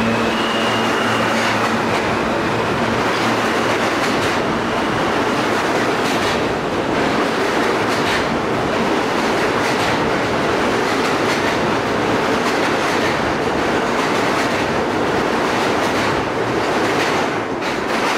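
New York City subway R train running past the platform and pulling away: a steady rumble of wheels on rail with repeated clacks over the rail joints. A brief whine fades out in the first couple of seconds.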